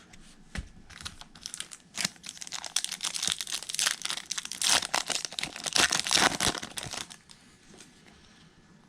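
Trading card pack wrapper crinkling and tearing, a dense run of rapid crackles that fades out about seven seconds in.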